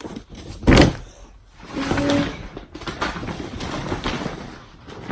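A sharp knock, the loudest sound, about a second in, then a few seconds of rustling and shuffling as gift items and their packaging are handled.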